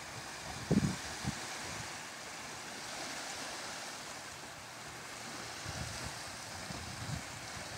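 Small waves washing on a bay shore as a steady hiss, with wind on the microphone. A short low bump comes less than a second in and a few fainter ones near the end.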